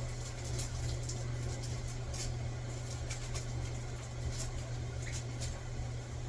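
Steady low hum with scattered light ticks and pops, from pots of ground meat boiling on a kitchen stove.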